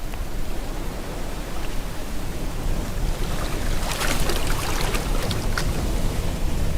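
Ocean waves breaking and washing in, mixed with rain, as a steady hiss over a low rumble. About four seconds in a wave swells with a crackling fizz that dies back about two seconds later.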